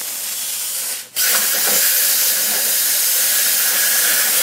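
Miller Spectrum 375 Extreme air plasma cutter cutting through a rusted steel mower deck: a loud, steady hiss of air and arc. It cuts out for an instant about a second in, then comes back louder and holds steady.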